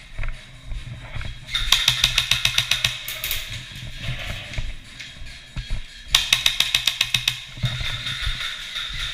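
Airsoft gun firing two rapid full-auto bursts, each about a second and a half long, over background music with a steady bass.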